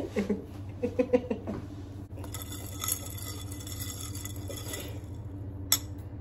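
Metal spoon stirring ice cubes in a tall glass, the ice and spoon clinking and rattling against the glass, with a sharp clink near the end.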